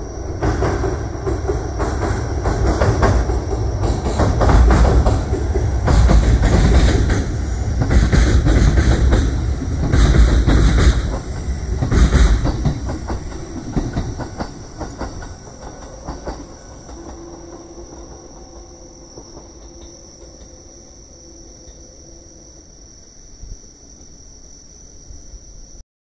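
Kintetsu Ikoma Line electric train passing close by, its wheels clacking in a series of loud knocks over the rail joints above a heavy rumble, then fading away after about fourteen seconds.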